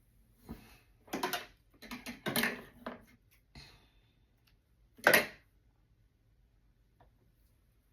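A handful of short, irregular knocks and rattles, like objects being handled and set down. The loudest is a single clunk about five seconds in.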